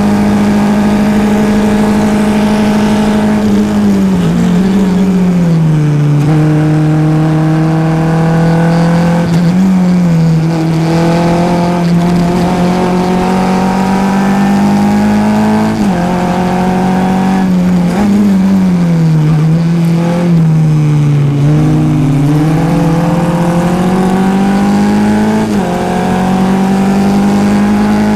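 Onboard sound of a Formula F race car's engine. It runs steadily near full revs at first, then drops as the car brakes into a corner, and climbs through the gears again several times, with sudden steps in pitch at each shift.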